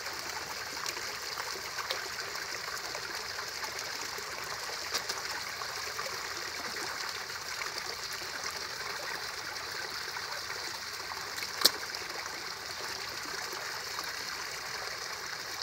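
Steady trickle of water from a pond filter's return pipe splashing into the pond, with one sharp click about three-quarters of the way through.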